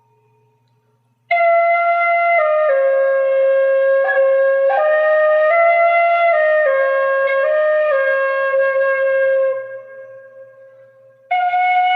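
Irish flute playing a slow, stepwise melody: a phrase starts about a second in and ends on a held note that fades, then a new phrase begins near the end.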